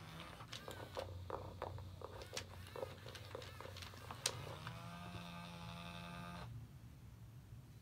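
Robotic toy cat moving, with irregular clicks and short squeaks from its mechanism, then one electronic meow lasting about two seconds that cuts off suddenly.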